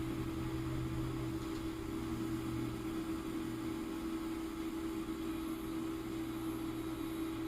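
A steady mechanical hum with one constant low tone, unchanging throughout.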